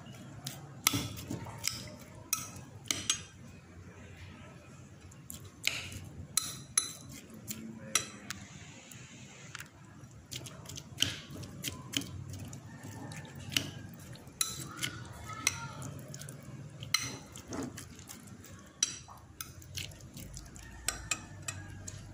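A metal spoon stirring flaked canned tuna and chopped red onion in a glass bowl, with irregular sharp clinks of the spoon against the glass.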